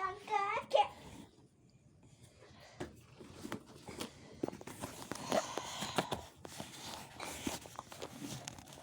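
Scattered small clicks and soft rustling of a fabric bag being handled while its seam stitches are picked open with a pin, with a brief louder rustle about two-thirds of the way through.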